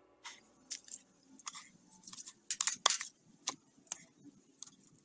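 Metal tongs and a cleaver working grilled spare ribs on a plastic cutting board: a string of irregular sharp clicks and scrapes as the meat is gripped and cut, the loudest around the middle.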